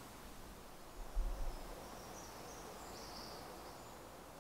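Quiet woodland ambience with a small bird singing short, high-pitched phrases, and a brief low rumble about a second in.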